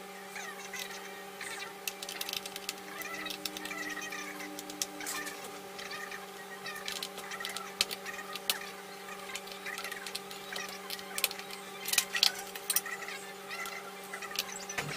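Scattered sharp clicks and taps of a laptop being taken apart, several in quick succession a little past the middle, over a steady electrical hum, with faint bird chirps behind.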